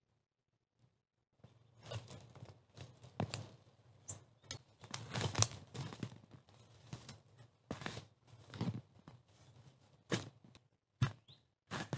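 Small spade digging into forest soil: irregular scrapes and crunches as the blade cuts through earth, roots and leaf litter, starting about a second and a half in.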